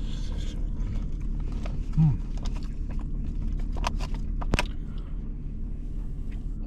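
Someone eating: a utensil clicks sharply a few times near the middle, and a short low 'mm' comes about two seconds in. A steady low mechanical hum runs underneath.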